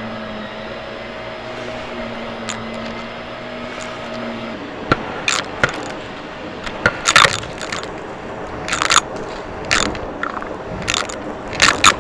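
Vacuum cleaner running with a steady hum, which drops away about four and a half seconds in. A run of sharp crackles and crunches follows over the steady rush of air.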